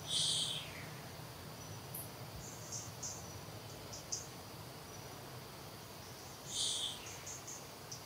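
Insects chirping in short, high-pitched pulses. Two louder, buzzier high calls about half a second long cut in, one right at the start and one about six and a half seconds in.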